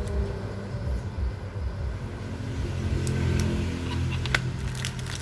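A low engine rumble, louder in the second half, with a few light clicks.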